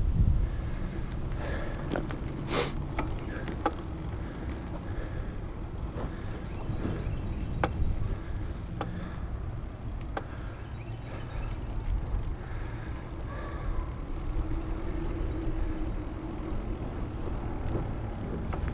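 Wind on the microphone and tyre rumble from a bicycle ridden along a paved path, with scattered sharp clicks and ticks.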